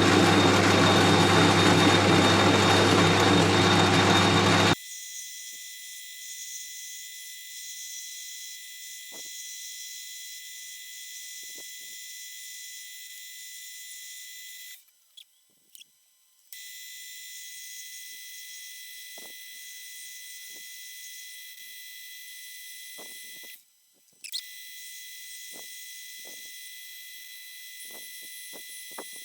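A workshop power tool running loudly for about the first five seconds, then cutting off sharply. After that a faint steady high whine with a few light ticks, twice dropping out briefly.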